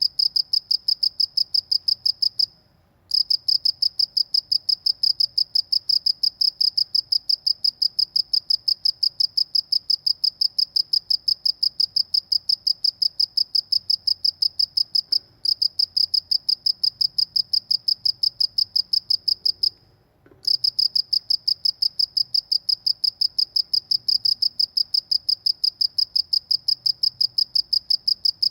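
A cricket chirping close to the microphone: a loud, fast, even train of high, pure-pitched pulses, broken by short pauses about two and a half seconds in and again around twenty seconds in.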